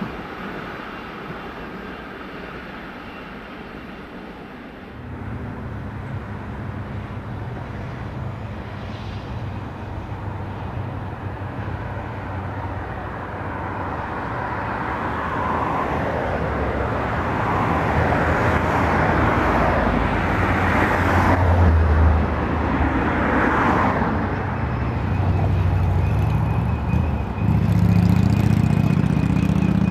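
For the first few seconds, the faint rail noise of a container train's tail running away. Then the diesel engines of a 48 class and two 80 class locomotives on an oil train rumble steadily and grow louder as they draw near. A thin, steady high whine joins in near the end.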